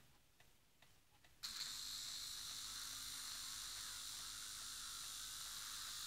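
Small brushed DC motor from a Conair hairdryer switches on about one and a half seconds in and runs steadily with a high-pitched whirr. The motor is running again after its broken winding wires were soldered, though the owner is unsure all the windings are working.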